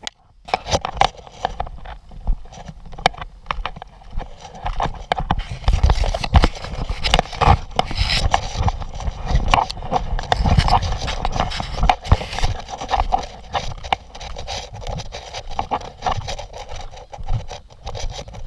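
Walking with a body-worn camera: a run of irregular knocks, scrapes and rubs as the camera and its mount brush against clothing, with footsteps through grass and onto pavement.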